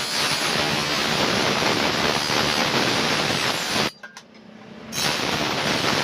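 Electric grinder running loud and steady. It cuts off suddenly about four seconds in and comes back about a second later.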